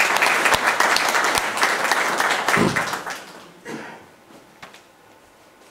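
Audience applauding, dying away about three to four seconds in.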